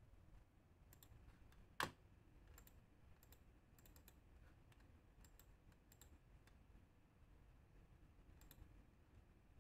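Near-silent room tone with faint, scattered clicks from a computer keyboard and mouse, and one sharper click about two seconds in.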